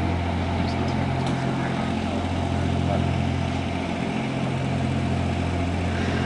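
An engine running steadily at idle: a constant low hum that holds the same pitch and level throughout.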